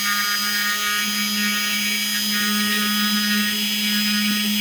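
Chicago Electric rotary tool running with a steady whine, its diamond bit grinding a hole into a citrine crystal held under water.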